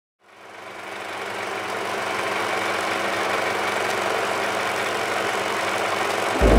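Steady mechanical whirring noise that fades in over the first second and then holds even. Near the end a much louder deep sound cuts in.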